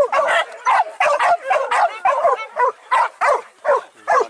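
A pack of leashed boar-hunting dogs barking and yelping in quick overlapping bursts, several dogs at once, straining at their leashes in excitement.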